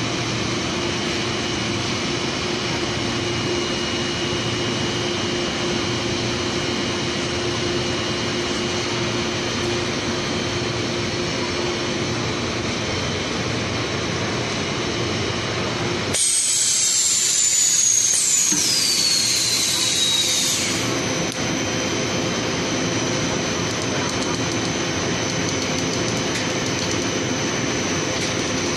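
PVC foam board extrusion line running: a steady machinery hum with a faint low tone that fades out about halfway. Just past the middle, a loud high-pitched noise with two falling whistles lasts about four seconds, then the steady hum returns.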